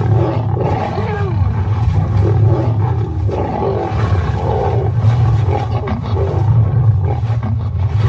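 Lions fighting at close quarters, growling and roaring loudly and without a break.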